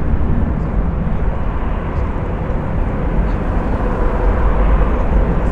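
Jet airliner engines at high power during a takeoff run: a steady, loud rumble with a faint whine above it.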